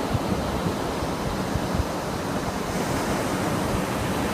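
Steady rush of wind and ocean surf, with wind buffeting the microphone.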